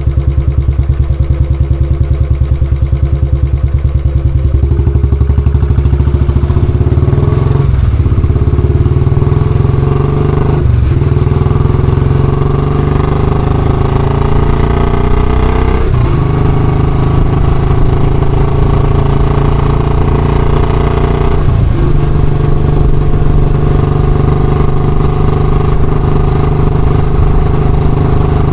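Royal Enfield Classic's single-cylinder engine thumping at a slow idle, then pulling away and accelerating. Its pitch rises in stretches, broken four times by short dips where it changes gear.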